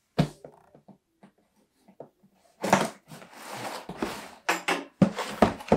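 A large cardboard box handled on a wooden tabletop: a sharp tap at the start, knocks, and a scraping rasp from about three to four and a half seconds in, with a few more knocks near the end.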